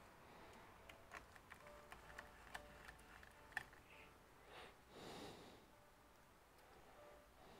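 Faint small clicks and ticks of a precision screwdriver working the screws of a Gigabyte Aero 15 laptop's bottom cover, with one sharper click about three and a half seconds in. A brief soft rustle follows about five seconds in.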